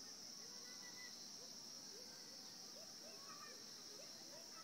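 Faint, steady high-pitched insect chorus, with faint short rising and falling calls beneath it.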